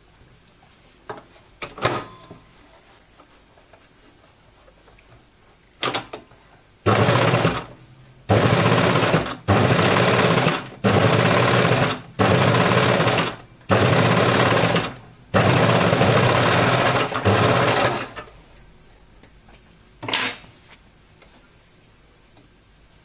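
Coverstitch machine running in seven short stop-start runs, the last one longer, as it stitches down a seam allowance on sweatshirt fleece. A few light clicks come before the runs and one after.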